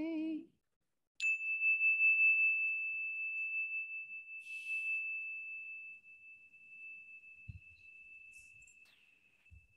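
A metal chime struck once with a small mallet, giving one high, clear tone that rings on and slowly fades with a slight pulsing waver.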